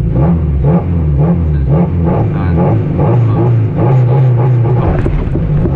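Rally car engine under hard driving, its revs rising and falling repeatedly as the driver works through gears and corners.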